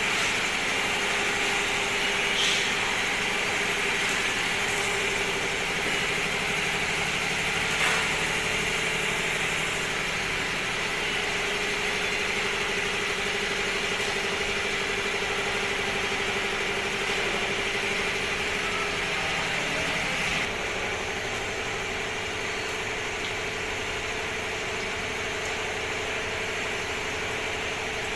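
Steady machine hum with a few held tones, with no strokes or rhythm; about twenty seconds in, part of it stops and the hum turns a little quieter.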